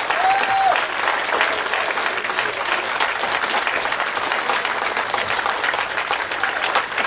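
Audience applauding, sustained clapping from a roomful of people, with a voice or two calling out briefly over it.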